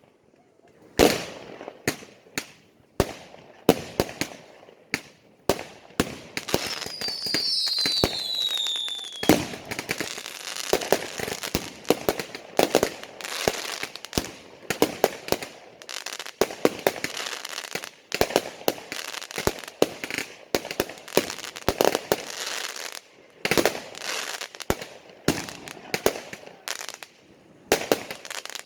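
Fireworks going off in a rapid string of sharp bangs. A whistling firework glides down in pitch about seven seconds in, and a long run of dense crackling follows before single bangs return near the end.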